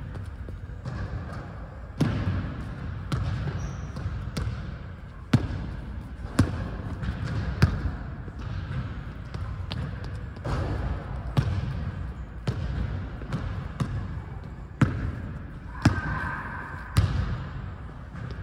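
A basketball bouncing on a gym floor during a shooting drill: a sharp thud about once a second.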